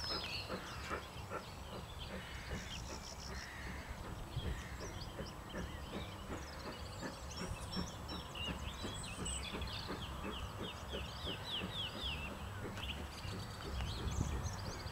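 Songbirds chirping and trilling, loudest of all, over the faint exhaust beats of a distant working steam locomotive, GWR No. 9351, at about three a second.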